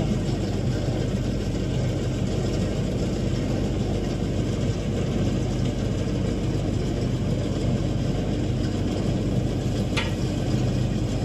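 An engine runs steadily at idle as an even, continuous low drone, with a single sharp click near the end.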